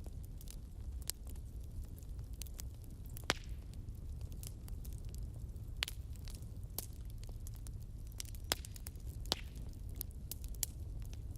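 Wood fire burning in a fireplace: a low steady rumble of flames with irregular crackles and pops from the burning logs, and a few sharper snaps scattered through.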